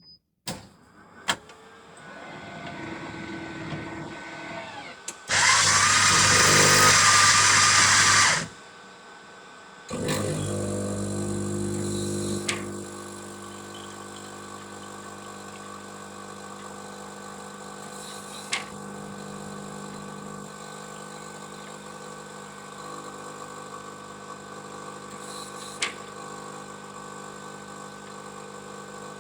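Coffee machine running through its cycle: a few clicks, a low hum, then a loud whirring of about three seconds that stops abruptly. After a short lull it starts a steady humming run, louder for the first couple of seconds and then even, with a click now and then.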